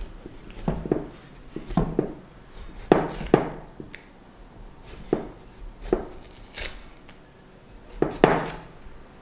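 Kitchen knife cutting the peel off a large jicama, about ten short slicing strokes at uneven intervals.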